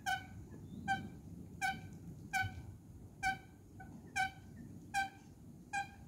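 Eurasian coot calling a short, sharp note over and over, about eight times, roughly one call a second.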